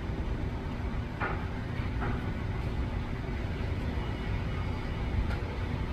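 Low, steady rumble of a motor vehicle engine running, with a couple of faint brief knocks or rustles about one and two seconds in.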